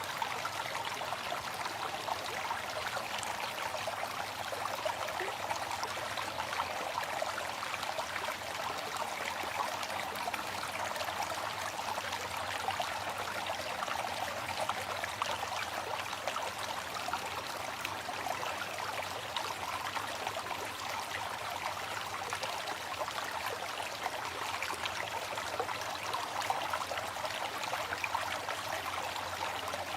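Waterfall: falling water rushing and splashing steadily, with no change throughout.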